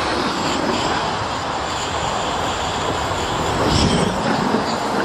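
A small black-powder firework rocket motor burning, a steady rushing hiss that swells slightly about four seconds in as its exhaust jet sprays out.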